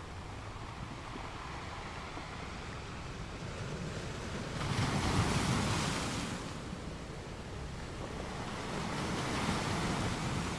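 Sea waves washing onto the shore: a steady surf hiss, with one wave swelling to a loud wash about five seconds in and a smaller one near the end.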